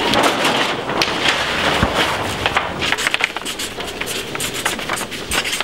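Brown paper being handled and written on with a felt marker: rustling and many short scratches and clicks over a crowd's background noise.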